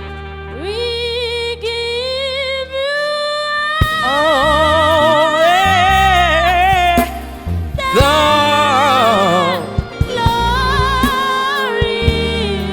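Gospel worship music: a solo voice singing long, wavering held notes without clear words over sustained bass tones.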